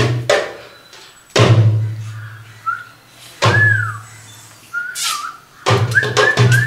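Percussion accompaniment with whistling. A rhythm dies away at the start, then two spaced, deep drum hits ring on with a low hum, with short whistled notes that rise and fall between them. A fast drum rhythm with more quick whistled notes comes back about a second before the end.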